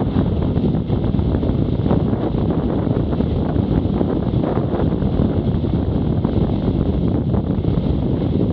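Steady wind buffeting on the microphone of a camera riding on a BMW F800GS motorcycle, with the motorcycle's running and road noise mixed in under it.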